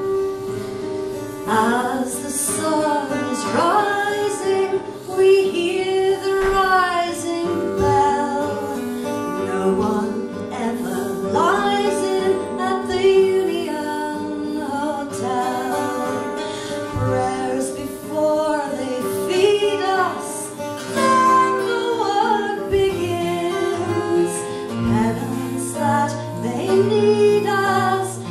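Acoustic folk music: plucked guitar accompaniment under a sliding, sustained melody line, over a steady held note.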